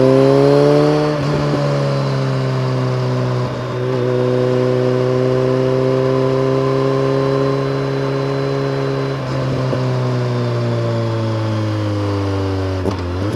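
BMW K1300R inline-four motorcycle engine running under way through a full Akrapovic race exhaust fitted with a dB killer. Its note climbs briefly at the start, then holds fairly steady. It dips and recovers in a few short breaks, and settles lower near the end.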